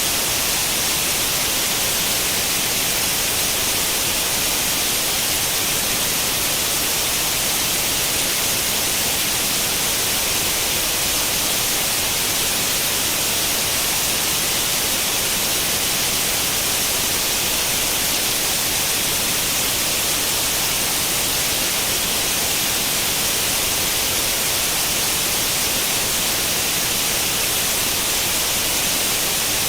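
Steady white-noise hiss like the static of an old tube television tuned to no channel, even and unchanging, with its strength in the higher frequencies.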